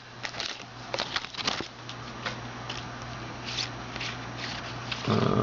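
Trading cards being handled and flipped through by hand: light, scattered clicks and rustles.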